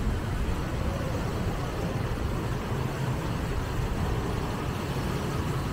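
Steady low rumble of city street traffic mixed with wind buffeting the microphone, with no distinct events.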